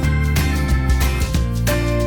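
Background music: an upbeat track with a steady beat and plucked guitar.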